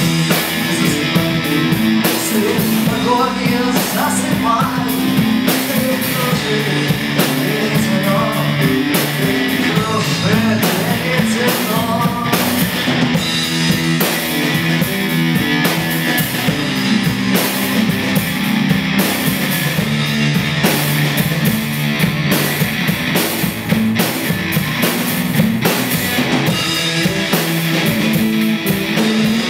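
Rock music from a band with drum kit, bass and guitar, playing steadily without a break.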